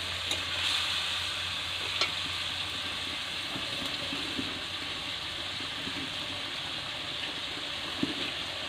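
Potato and vegetable curry sizzling steadily in hot oil in a metal kadai as the spices are sautéed down, with a few sharp clicks of a metal spatula against the pan, one about two seconds in and one near the end.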